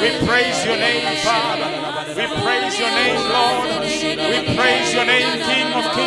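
A church praise team singing a worship song, several voices singing together.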